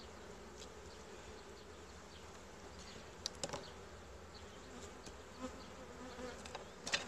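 Honeybees of an opened Buckfast colony buzzing in a steady, faint hum, with a few light clicks about halfway through and again near the end.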